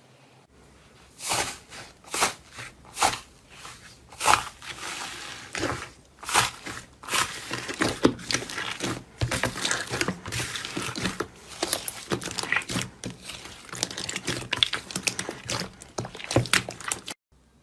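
Slime being squeezed and worked by hand, giving irregular crackling and popping clicks. It stops suddenly near the end.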